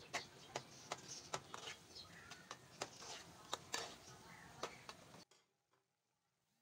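Metal spatula clicking and scraping against a metal karahi while stirring yogurt into ground beef keema, irregular sharp clicks over a low hiss. It cuts off suddenly about five seconds in.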